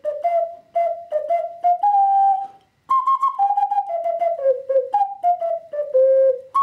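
Plastic ocarina playing a simple melody of short tongued notes. The notes step up to a held note, break off briefly, then start higher and step back down to the low note near the end.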